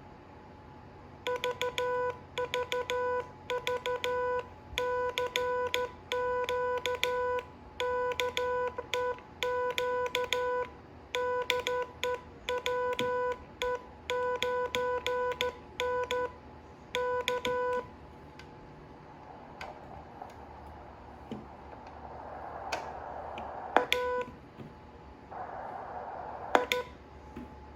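Heathkit HW-8 QRP transceiver sounding a Morse code (CW) tone, keyed on and off in dots and dashes for about sixteen seconds. Then the receiver's hiss swells and fades, with a few sharp clicks.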